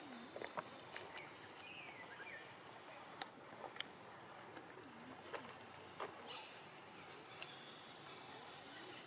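Faint outdoor ambience: light crackling and rustling of dry leaf litter as baby long-tailed macaques scuffle, with a few short calls scattered through.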